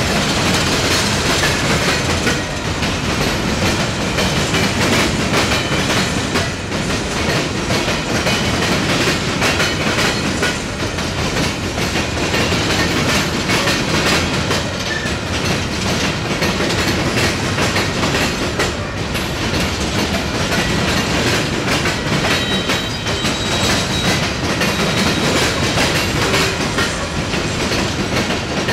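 Empty coke hopper cars rolling past, their wheels clattering steadily over the rail diamond crossing, with a few faint high wheel squeals in the second half.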